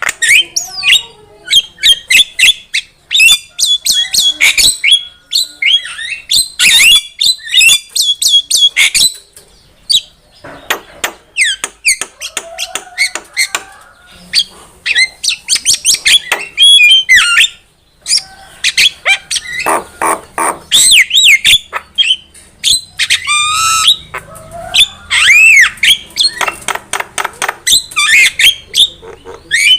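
Javan myna in full, energetic song: a loud, varied run of whistled notes that slide up and down, harsh squawks and rapid chattering clicks, broken by a few short pauses.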